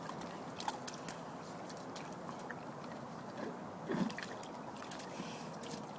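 Faint water trickling and lapping with a few small clicks, and a slightly louder splash about four seconds in, from a dog working pieces of ice out of a small, partly frozen pond.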